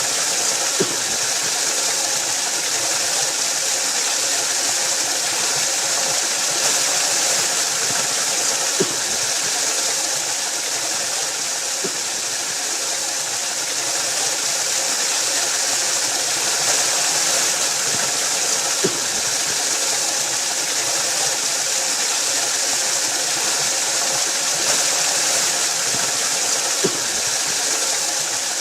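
Waterfall: a steady, unbroken rush of falling water, bright and hissy, with a faint tick every few seconds.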